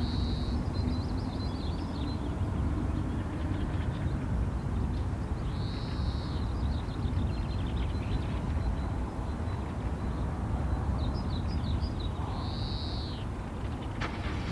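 Wild birds calling: the same short arched call comes three times, about six seconds apart, with quick twittering chips between. Under it runs a steady low rumble, and there is a single click near the end.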